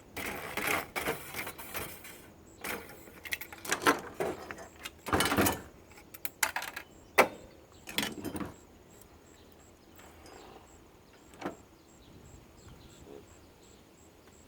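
Irregular clicks, rattles and scraping of an air purifier's plastic parts and wiring being handled and pulled apart by hand during disassembly, busiest in the first half, then quiet apart from one sharp click.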